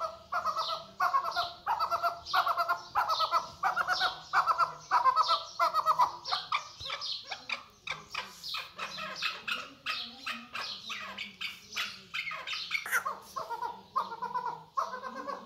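Chakor partridge calling over and over: a rhythmic chatter of quick repeated notes, about two phrases a second, breaking into looser, scattered notes midway before settling back into the steady rhythm.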